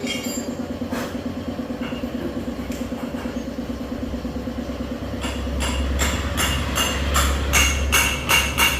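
Small Suzuki Let's scooter engine running with a steady, fast pulse. From about five seconds in, a rapid series of sharp knocks at about three a second joins it, growing louder over a deeper rumble.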